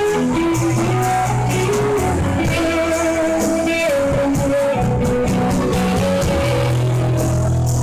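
Live jam-band rock played loud through amplifiers: electric guitars, one playing a melodic lead line of held notes, over an electric bass line.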